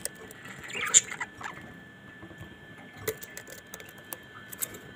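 Pet parrots in their cage, sparse sharp clicks and scratches from beaks and feet on bars and plants, with a short chirp about a second in.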